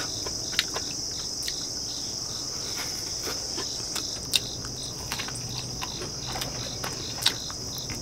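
Steady chorus of crickets with another insect chirping in an even rhythm, and a few short sharp clicks of a fork against a plate while eating.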